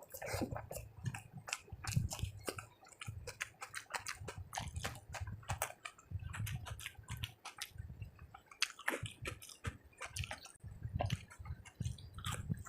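Close-miked chewing of a rice and curry meal: wet mouth smacks and small clicks, repeated over steady low jaw thumps that come in runs of a second or two.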